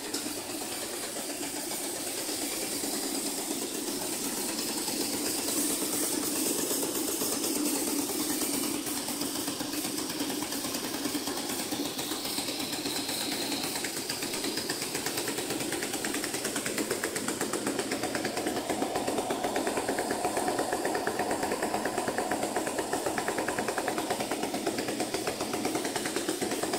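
Tube mill forming and seam-welding DN300 thin-wall pipe: a steady, dense machine noise with a fast, even rattle that grows louder about two-thirds of the way in.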